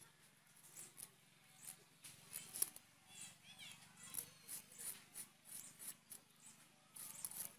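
Faint, quick, irregular scraping strokes as spotted snakehead fish are scraped and cut against two curved iron bonti blades.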